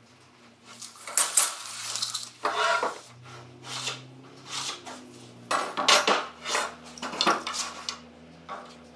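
Steel hand tools clinking and clattering against wooden boards as a framing square, tape measure and small C-clamps are handled and set down. It is a scattered series of sharp metallic knocks and rattles, loudest about a second and a half in and again about six seconds in.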